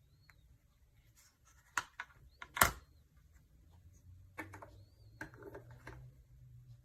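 Handling noise: a scatter of sharp clicks and knocks with faint scraping, the loudest a single sharp knock about two and a half seconds in.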